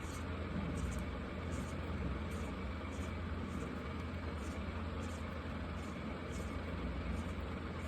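Felt-tip marker strokes on paper: short scratchy strokes, roughly one or two a second, over a steady low hum.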